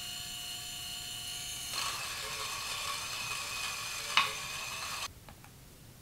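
Varia VS3 electric coffee grinder running with a steady high motor whine as it grinds coffee, getting louder and rougher a couple of seconds in. A sharp click comes just before the grinder cuts off about five seconds in.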